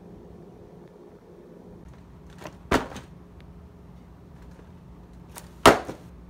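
Two sharp knocks about three seconds apart, the second one louder, over a faint steady hum.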